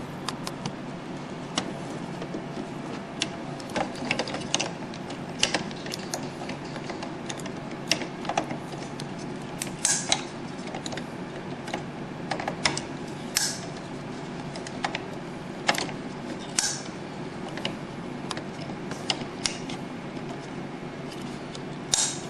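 Irregular plastic clicks, taps and short scrapes as ink cartridges are pushed and seated into the cartridge carriage of an HP OfficeJet 6000 inkjet printer, over a steady low hum.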